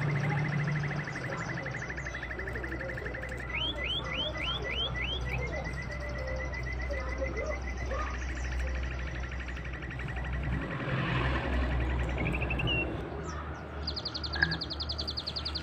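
Birds chirping: a fast, steady trill with a run of five quick rising chirps about four seconds in, and a higher trill near the end, over a faint low hum.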